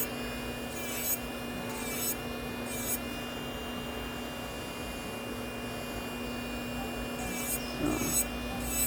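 Melody Susie Atena cordless nail drill running with a steady hum while its bit files dip powder off a fingernail in short scraping passes, about one a second, with a pause of several seconds in the middle.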